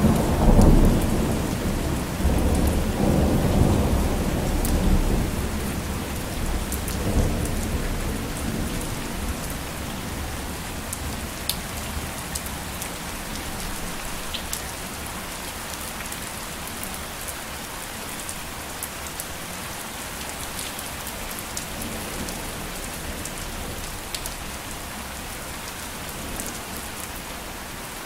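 Steady rainfall with a continuous hiss and scattered drop ticks, and a roll of thunder rumbling loudly at the start that fades away over the first eight seconds or so.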